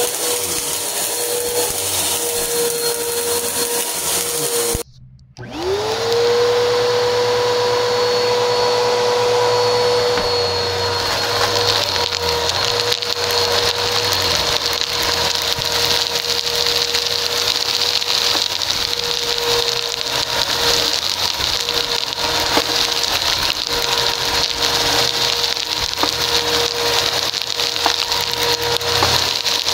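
A PowerForce upright bagless vacuum running steadily on carpet with a high motor whine, crackling as it sucks up scattered bits of paper confetti and debris. About five seconds in the sound drops out briefly, and the motor whines back up to speed.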